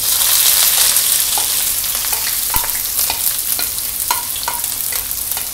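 Chopped onions sliding into hot oil in a wok and sizzling, the hiss loudest as they go in and easing slightly after, with a few light knocks of a spatula against the plate and pan.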